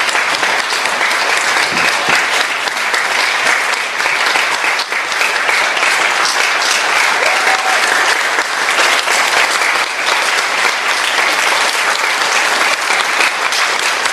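Audience applauding steadily, a dense, sustained clapping.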